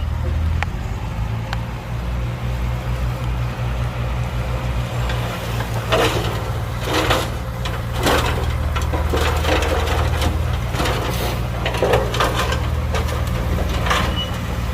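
Heavy diesel machinery engine running steadily, with a string of short crunching noises from about six seconds in.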